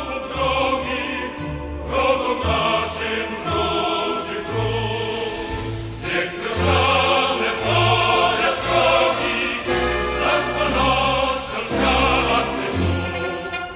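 Background choral music: a choir singing sustained lines over low bass notes that change every second or so.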